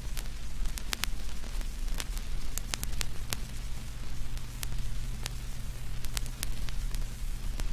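Crackling surface noise like a vinyl record: scattered sharp clicks at irregular spacing over a soft hiss and a steady low hum.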